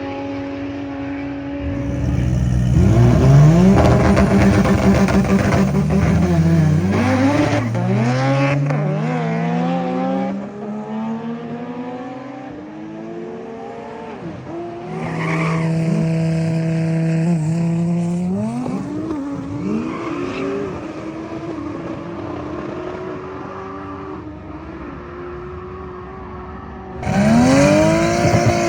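Race-prepared street cars accelerating hard, engines climbing in pitch and dropping back at each gear change, heard across several cut-together clips. Near the end a car passes close by, its engine pitch falling sharply as it goes past.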